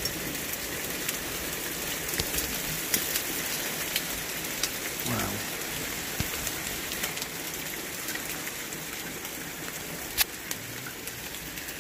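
Heavy rain mixed with small hailstones pelting a paved patio, plant pots and foliage: a steady hiss dotted with sharp ticks of individual stones striking, one louder knock about ten seconds in.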